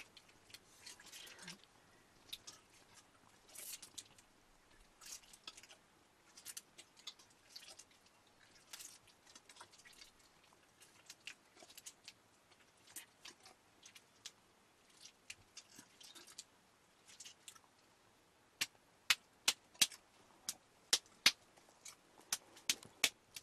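Hands squeezing and kneading a soft wet lump over a pot: scattered squelches and small wet clicks, then, about three-quarters of the way in, a run of louder sharp slaps, about two a second, as the lump is patted between the palms.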